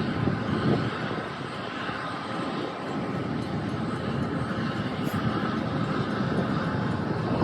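Tugboat diesel engines running with a steady, rumbling drone.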